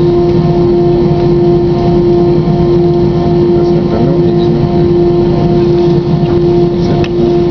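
Airbus A320 cabin noise from a seat over the wing: the jet engines running at a steady setting, a loud, even rumble with a steady hum on top and no rise in pitch.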